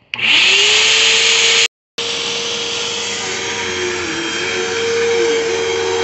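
Upright vacuum cleaner switched on at its power button: the motor spins up with a rising whine and settles into a loud, steady run. The sound cuts out completely for a moment about two seconds in, then the vacuum runs on steadily.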